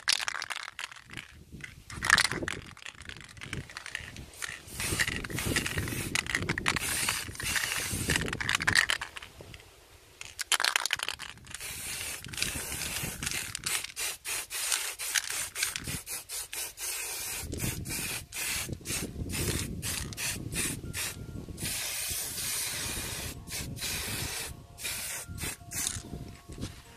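Aerosol spray-paint can hissing in many short on-and-off bursts as a light first coat is dusted onto a brake caliper. Wind rumbles on the microphone underneath.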